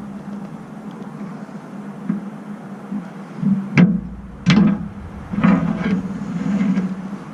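An engine idling steadily in the background, with a few sharp clicks and knocks of parts and tools being handled, around the middle.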